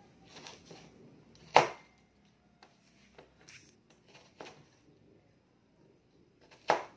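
Kitchen knife slicing raw sweet potato into fry strips on a plastic cutting board: the blade knocks down on the board at irregular intervals, with two sharp strokes, one about a second and a half in and one near the end.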